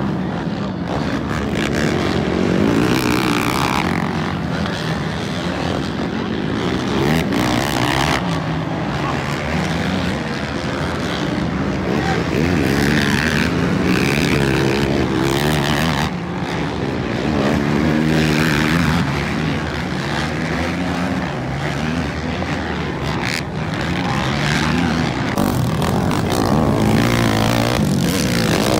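Race quad (ATV) engines on a motocross track, revving up and falling off again and again as riders accelerate, shift and slow for the obstacles.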